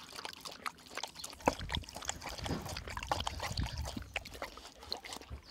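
Dog lapping water from a plastic bowl through a soft mesh muzzle: a run of quick, uneven lapping and dripping sounds.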